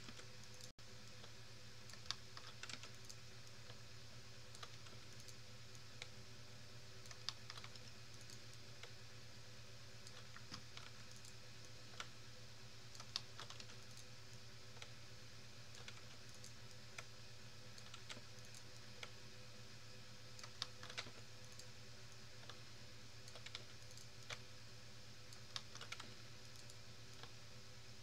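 Faint, irregular clicking and tapping of a computer keyboard and mouse, with a louder click every second or two, over a steady low hum.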